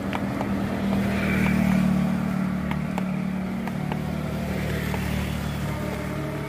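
Bus engine running with a steady low hum, swelling louder about a second in and easing back after.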